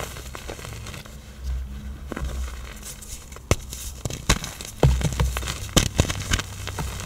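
Hard pressed blocks of black iron oxide powder being crushed: irregular crisp cracks and crunches with a few dull thumps, the sharpest snaps coming in the second half.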